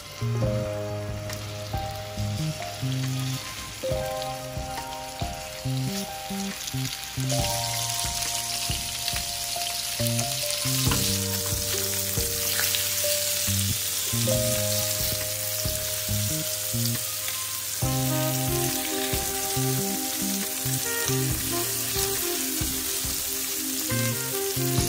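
Salmon fillets sizzling in hot olive oil in a frying pan, the sizzle growing louder a third of the way in and again near the middle as more fillets go into the pan. Background music plays throughout.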